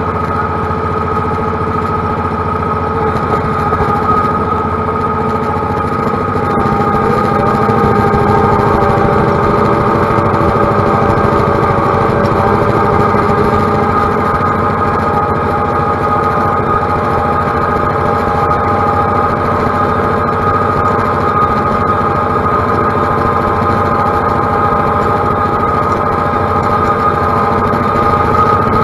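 John Deere utility tractor's diesel engine running steadily while cutting tall grass. Its pitch rises briefly about seven seconds in, and it runs a little louder after that.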